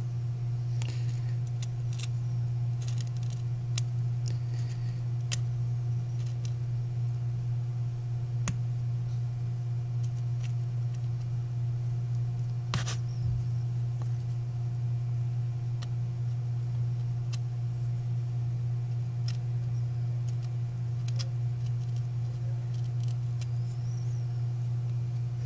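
A steady low hum under scattered small clicks and scrapes of metal tweezers picking at the cracked glass of a Samsung Galaxy S7's rear camera lens cover, with one sharper click about halfway through.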